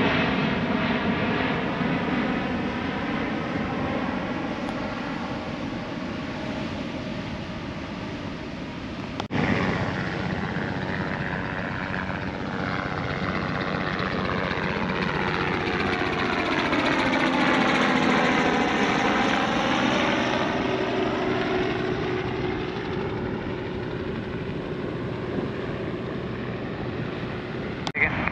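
Jet airliners climbing out overhead after takeoff. Engine noise fades away, breaks off at a cut about nine seconds in, then builds again as another jet passes over, with a sweeping, phasing whoosh at its loudest around the middle before it fades.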